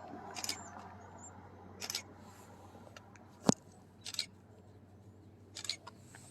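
Quiet outdoor background with scattered short clicks and rustles, the sharpest a single click about three and a half seconds in, and a few faint high chirps near the start.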